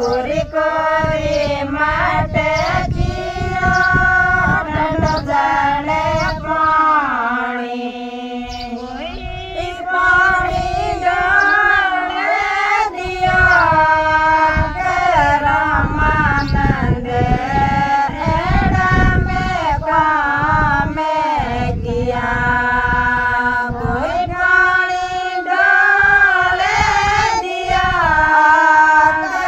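A group of women singing a Rajasthani harjas, a devotional folk song, together in chorus with long held notes.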